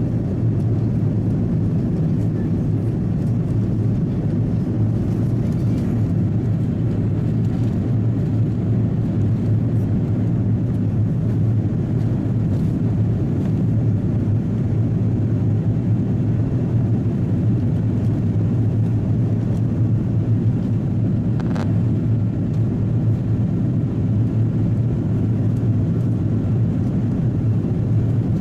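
Steady low drone inside the cabin of an Airbus A330-300 airliner in flight: engine and airflow noise, even in level throughout, with one faint click about three-quarters of the way through.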